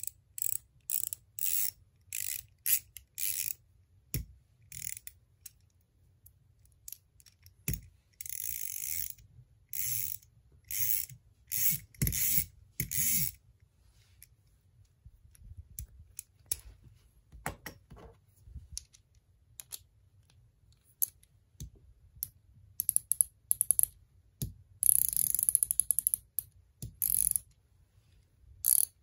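Small 1/4-inch Tone ratchet with a Nepros quick spinner fitted on its head, spun by hand so the pawl clicks in quick rattling spurts of about half a second to a second each, over a dozen of them with short pauses between. A few dull knocks from handling the tool come in between.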